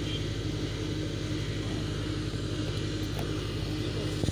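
Fire engine's engine idling with a steady, low, even hum.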